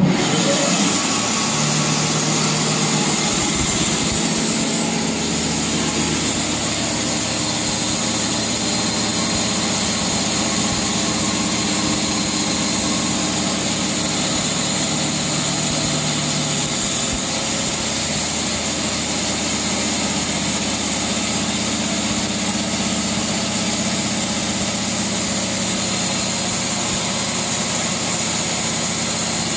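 Band sawmill switched on and running without a log: the machine noise starts suddenly and then runs steadily and evenly, with a low hum that drops out about sixteen seconds in.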